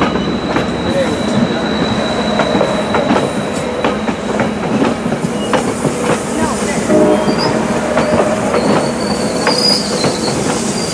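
Passenger train coaches rolling past, the wheels clicking steadily over the rail joints, with a thin high squeal from the wheels coming in near the end.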